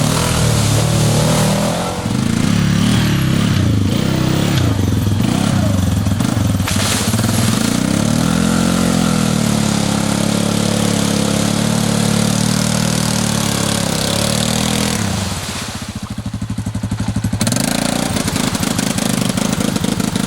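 ATV engine running, its pitch rising and falling as the throttle is opened and eased. About fifteen seconds in it drops to a pulsing idle for a couple of seconds, then revs up again.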